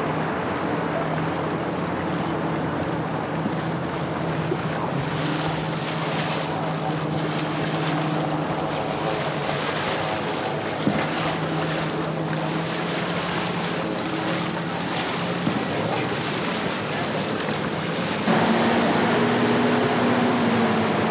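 Boat engine droning steadily under the rush of water and wind on the microphone. About 18 seconds in the sound jumps louder with a different, higher engine note as a small motorboat runs close by.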